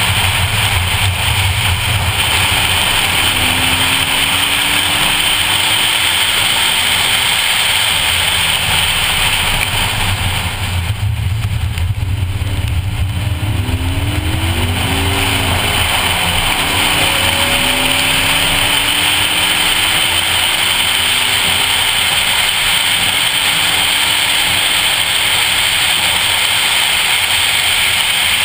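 2014 Ford Focus ST at speed on a rain-soaked track: a loud, steady wash of tyre spray, rain and wind over its 2.0-litre turbocharged four-cylinder, whose faint pitch rises again and again as it accelerates. The noise dips briefly about eleven seconds in, then the engine pitch climbs once more.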